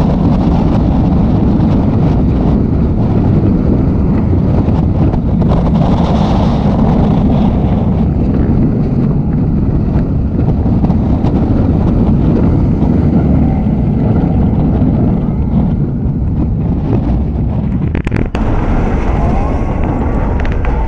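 Loud, steady wind rush on the microphone and track rumble from an Intamin steel roller coaster train running through its course at speed. Several sharp clicks come near the end, as the train nears the lift hill.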